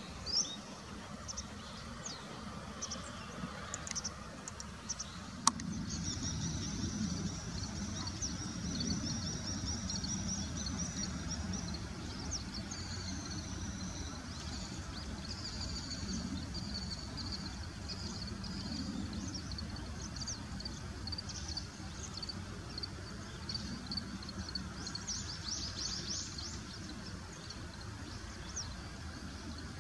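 Small birds calling in thin, high chirps and a run of rapid twittering, over a steady low background rumble; a sharp click about five seconds in.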